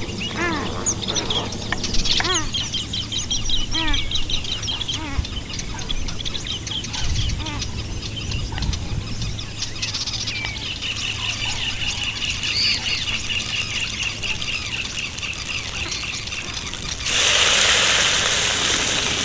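Small birds chirping, with a long trill in the middle. Near the end, curry leaves dropped into hot oil in a clay pot start sizzling with a sudden loud hiss.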